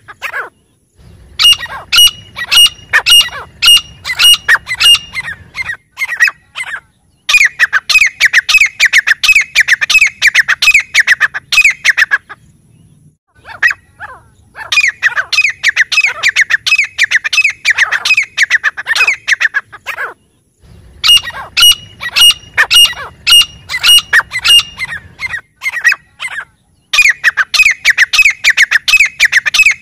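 Grey francolin calling: loud, harsh notes repeated rapidly in bouts of several seconds, about five bouts with short pauses of a second or two between them.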